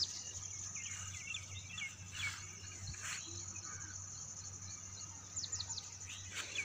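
Insects trilling steadily at a high pitch, with birds twittering softly in the first couple of seconds. About five and a half seconds in, a bird gives a quick run of three or four falling chirps.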